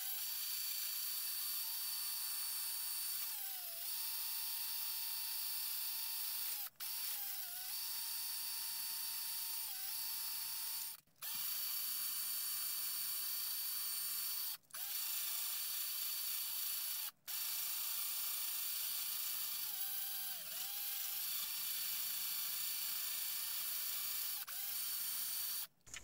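Cordless drill spinning a cloth buffing wheel against a rusty pocket-knife blade: a steady motor whine whose pitch dips briefly several times, broken by a few sudden short gaps.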